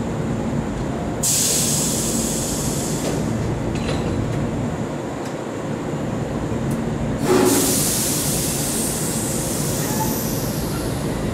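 Tobu 8000-series electric commuter train standing at a platform with its equipment humming steadily. A long burst of compressed-air hiss comes about a second in, and a louder one about seven seconds in that starts with a thump and fades out over a few seconds.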